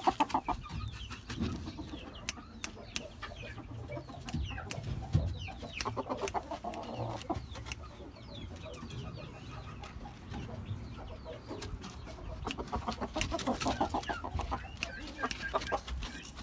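Young Oriental game bantam rooster clucking in rapid runs of quick, evenly spaced notes: once at the start, again about six seconds in, and a longer run near the end. Sharp clicks are scattered between the runs.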